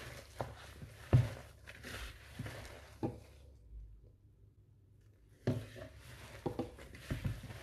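A gloved hand kneads and presses a damp mixture of crumbled rice cakes, tomato paste and water in a bowl: irregular soft thumps and knocks of the hand and mix against the bowl. There is a break of near silence about three and a half seconds in, then the knocks resume.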